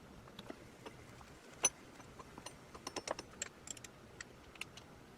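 Light, irregular clicks and taps from small metal parts being handled on a lathe while oil is put on the ways. The clicks are loudest once, about a second and a half in, and come thicker in the middle of the clip.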